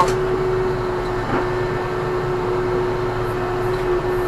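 Ursus C-392 tractor's diesel engine running steadily, heard from inside the cab, with one steady whining tone held over the engine noise.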